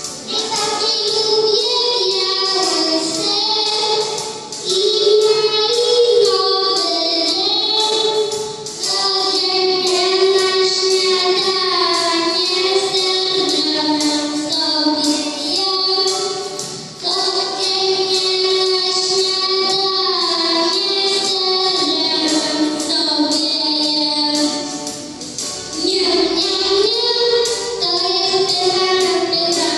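A child singing a song into a microphone over a backing track with a steady beat, pausing briefly between phrases.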